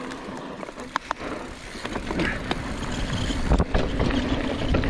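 Mountain bike rolling down a dry dirt and rock trail: tyres on loose rock and the bike rattling over the bumps, growing louder about halfway through.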